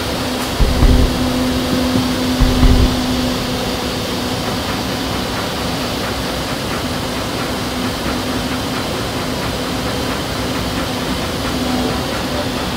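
Outdoor vertical wind tunnel running: a loud, steady rush of air from its fans with a steady hum underneath. Two short low thumps come in the first three seconds.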